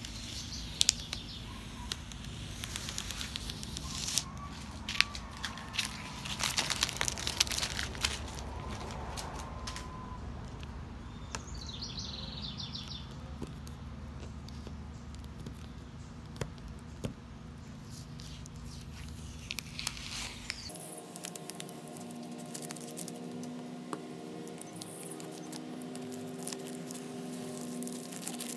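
Blue painter's tape being peeled off the glass and trim of a freshly painted door, crackling and tearing in short bursts as it comes away.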